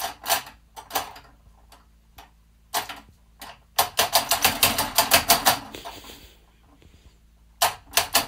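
Quick, irregular clicking and tapping as a cat bats at the ornament hanging below a wall clock, knocking it against the clock. A few scattered clicks at first, then a fast run of them about halfway through and another run near the end.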